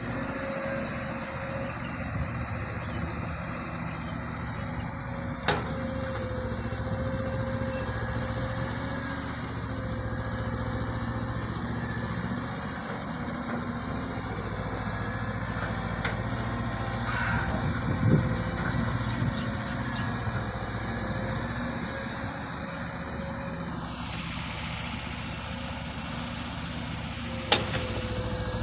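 Volvo long-reach excavator on amphibious pontoon tracks working. Its diesel engine runs steadily under a hydraulic whine that rises and falls as the boom and bucket move. Three sharp knocks come through the run, the loudest about two-thirds of the way in.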